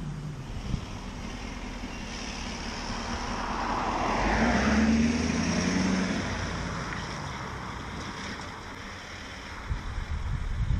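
A car driving past on the road, growing louder to a peak about halfway through and then fading away.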